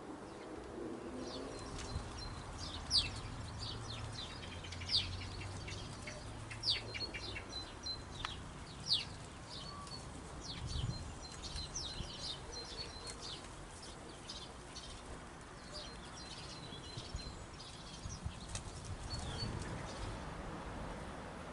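Small garden birds chirping: many short, sharp high chirps mixed with quick runs of ticking calls, dying away near the end.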